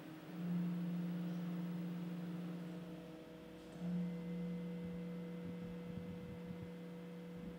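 A steady low humming tone, joined by a few fainter higher tones. It swells in about half a second in, eases off around three seconds, and swells back about four seconds in.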